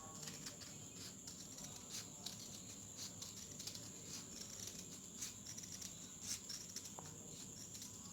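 Faint, irregular light clicks and rustles of cloth being cut and handled at a tailoring table, over a steady high-pitched whine.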